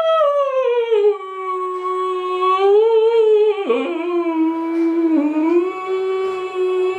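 A man singing one long held note, sliding down at the start and then sustained with a waver near the middle. He is singing with noise-cancelling headphones on, so he cannot hear his own voice, and he judges the singing to have gone badly.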